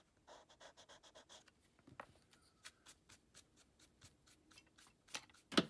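Pencil eraser rubbing on paper in quick short strokes, then a hand brushing eraser crumbs across the sheet, with a couple of sharper knocks near the end.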